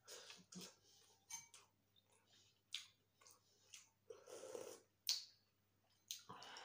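Close-miked eating sounds: soft chewing and small mouth clicks, a sip of pork-bone broth from a spoon about four seconds in, then short clinks of the spoon against the soup bowl.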